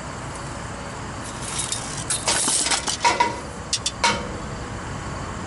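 Soft copper refrigeration tubing being pulled off its coil and handled: about three seconds of scraping and rustling, starting a little over a second in, with a few sharp metallic clicks and short ringing clinks near the end.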